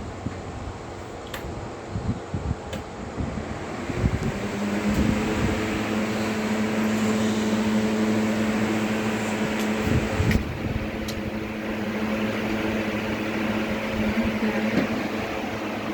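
Air cooler's fan motor running with a steady hum and rush of air, speeding up about four to five seconds in, with a few low thumps.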